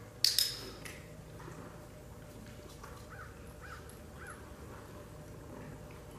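A single sharp click from a training clicker about a quarter second in, with a brief ring after it, marking the horse for standing still at the mounting block.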